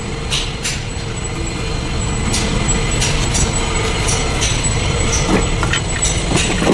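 A vehicle engine running with a steady low rumble and hum, with sharp clicks and knocks scattered throughout.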